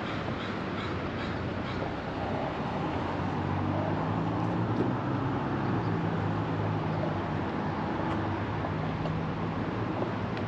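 Construction-site din: a steady low engine hum, typical of heavy machinery running, over a wash of city noise, with a run of short high chirps in the first two seconds.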